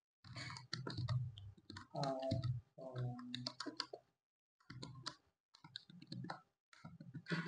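Computer keyboard typing: runs of quick key clicks with short pauses between them.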